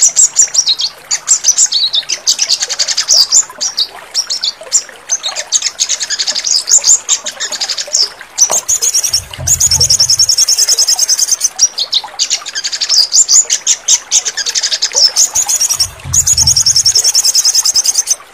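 Sogon songbird singing: rapid high chirps, broken by two long, fast, high trills, one about halfway and one near the end, with a low hum under each trill.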